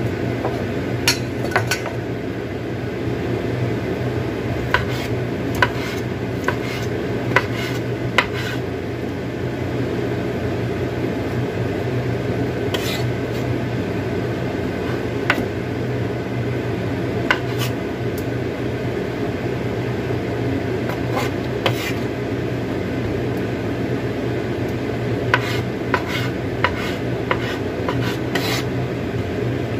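Kitchen knife slicing mushrooms on a cutting board: sharp, irregular knocks of the blade on the board, in clusters a second or so apart, over a steady low background hum.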